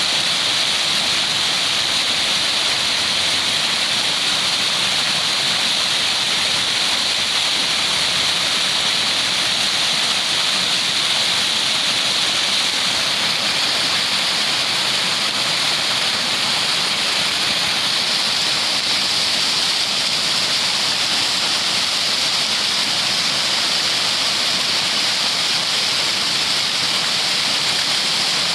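Steady rushing of flowing water, like a waterfall or stream, an even hiss with no breaks.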